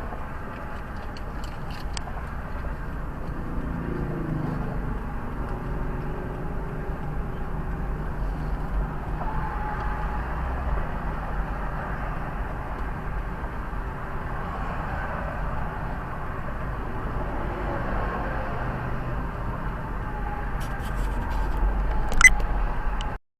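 Steady car and traffic rumble with a faint drifting hum, a sharp click near the end, then the sound cuts off abruptly to silence.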